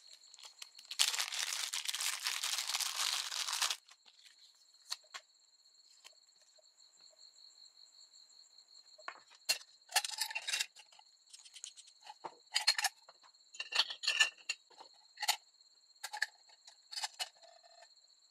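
A small plastic bag rustling for about three seconds, then a scattering of light metallic clicks and clinks as the mini lantern's metal hood and top are lifted and set back, over a faint steady high whine.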